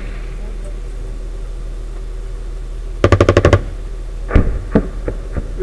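A short burst of automatic gunfire, about eight rapid shots in half a second, about three seconds in, followed by a few single sharp reports. Under it the steady hum of the armoured vehicle's engine running.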